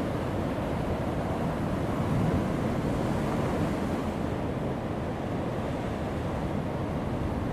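Heavy ocean waves breaking on a rocky shore: a continuous wash of surf, swelling a little louder two to three seconds in before easing back.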